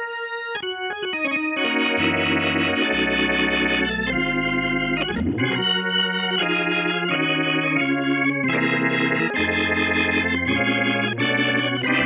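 Sampled Hammond-style tonewheel organ, Scarbee Vintage Organs 'Nearly Full' preset, through a Leslie speaker effect, played as chords over a bass line. A few quieter notes open it, then full chords with bass come in and change every second or so.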